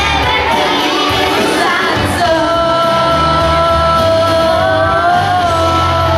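A song with a singing voice over a strong bass line; about two seconds in the voice settles on one long held note that wavers slightly and lasts to the end.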